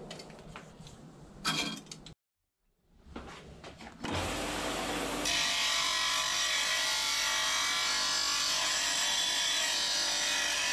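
Bench belt-and-disc sander starts running about four seconds in, and about a second later a 2 mm steel bracket is pressed against the sanding disc, giving a steady, harsh grinding. Before that there are a few faint handling clicks.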